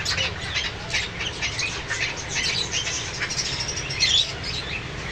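Many parrots calling at once: a dense, unbroken chatter of short, high chirps and calls, over a steady low hum.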